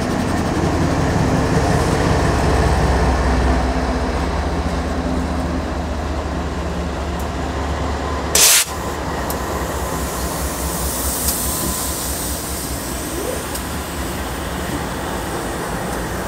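A string of BNSF diesel locomotives, an SD70ACe among them, passing close by with a steady deep engine rumble and rolling wheel and rail noise. About eight seconds in, a short loud burst of hiss cuts in.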